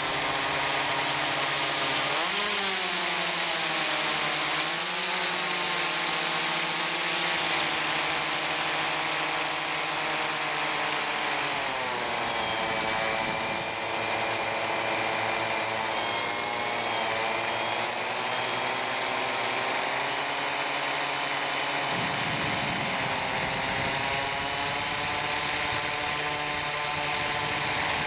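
Propeller motors of a video blimp heard from its onboard camera: a steady mechanical whine whose pitch rises and falls several times as the motors speed up and slow down, over a constant hiss.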